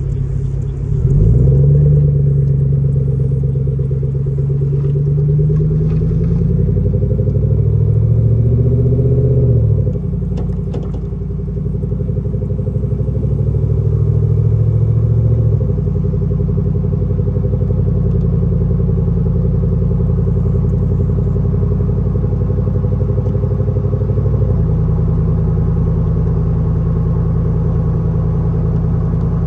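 GMC Sierra pickup's aftermarket exhaust, with the original 3-inch-in, 4-inch-out tip, running while the truck is driven. The engine note rises about a second in, drops near ten seconds, climbs again, then holds steady as it cruises.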